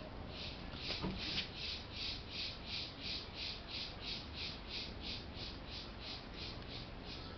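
A high-pitched animal call repeated evenly about three times a second, with a single knock about a second in.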